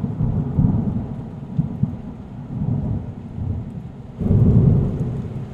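Rolling thunder rumbling over steady rain, swelling again about four seconds in.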